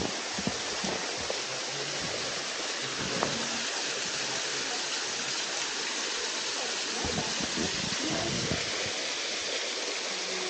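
Steady rush of falling water from a waterfall, with scattered low bumps underneath.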